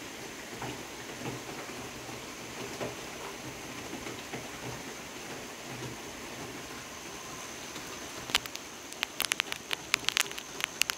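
Steady rain falling at night, an even hiss with a thin, steady high tone running through it. From about eight seconds in comes a burst of sharp, irregular taps, louder than the rain.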